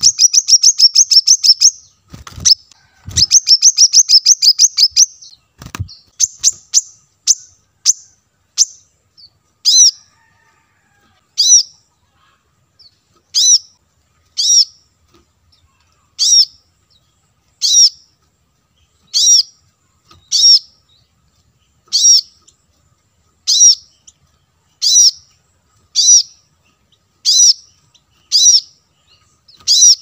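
Brown-throated sunbird calling: two fast trills of high chattering notes in the first five seconds, then one sharp, high call repeated about every one and a half seconds. A few low thumps sound during and just after the trills.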